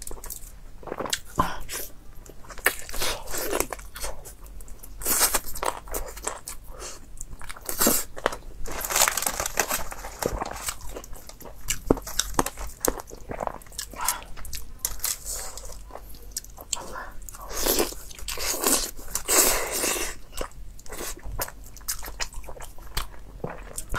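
Close-miked eating of a whole steamed chicken: chewing and wet mouth sounds in a dense run of irregular clicks and smacks, with the chicken's meat and joints pulled apart by hand on aluminium foil.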